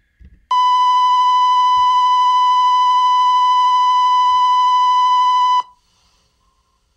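Steady electronic test tone, one unchanging high beep lasting about five seconds that starts and cuts off abruptly: the line-up reference tone at the head of an old video tape reel as it begins playing.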